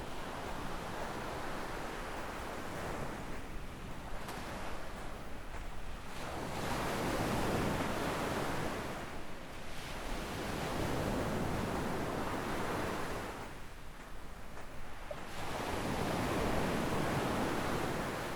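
Small sea waves breaking and washing up a sandy beach, the surf noise swelling and ebbing three times as successive waves come in.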